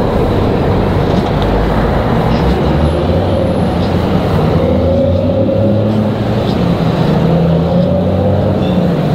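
Road traffic: car engines and tyres on the road close by, with a steady low engine hum.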